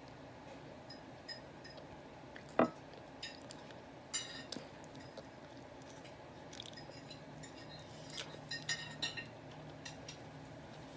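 Cutlery clinking and scraping against a plate while eating: scattered light clinks, a few with a brief high ring, and one sharper knock about two and a half seconds in.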